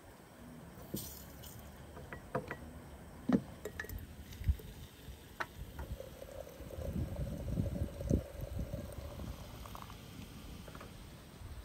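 Hot water running from a samovar's tap into a glass teapot of herbs, a steady filling sound for a few seconds in the middle. Before it and near the end come several small clinks of glass and metal as the teapot is handled.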